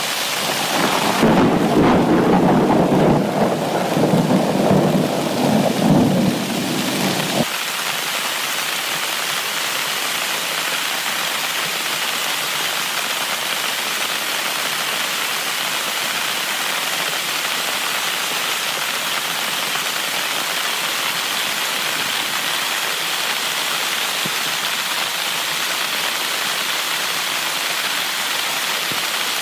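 Heavy rain falling steadily, with a rumble of thunder from about a second in until about seven seconds, ending abruptly.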